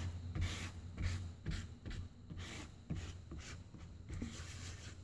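Marine-Tex epoxy putty being mixed by hand on cardboard with a plastic tool: repeated short scraping and smearing strokes, about two a second and unevenly spaced, as the paste and hardener are worked together.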